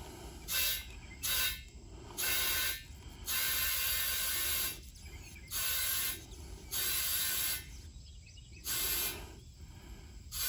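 Compressed air hissing from an air chuck in about eight short bursts, some brief and some over a second long, with pauses between, as a freshly plugged mower tire is filled to about 26 psi.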